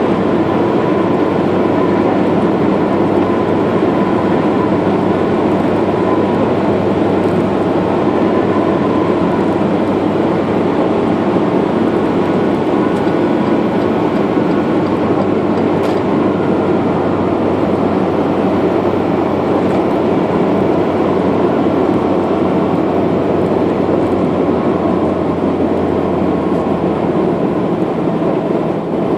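Steady road and engine noise of a vehicle cruising along a highway, heard from inside the vehicle: an even, unchanging drone with no gear changes or sudden events.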